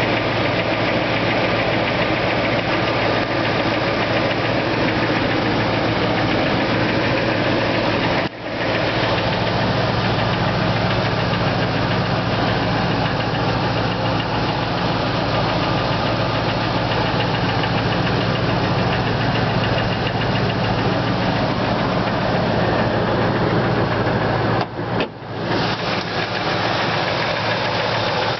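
1999 Ford F-150's 5.4-litre Triton 2-valve V8 running steadily, heard through a piece of wood pressed against the passenger-side exhaust manifold, with a knock that the owner suspects is rod knock from a spun rod bearing, possibly cylinder two. The sound briefly drops away twice, about 8 seconds in and again about 25 seconds in.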